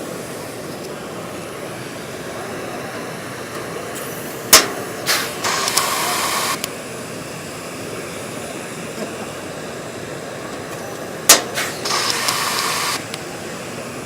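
RK8000LS autofeed pneumatic blind rivet tool setting two structural rivets, about seven seconds apart. Each starts with a sharp snap as the mandrel breaks, followed by a hiss of air that lasts about a second and a half.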